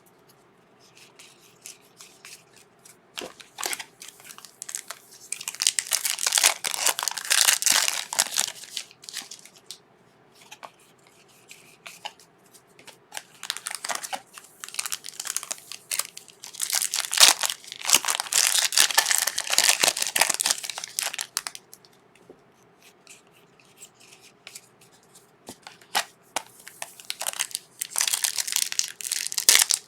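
A trading card pack wrapper being torn open and crinkled in several bursts of crackling, with quieter rustling between.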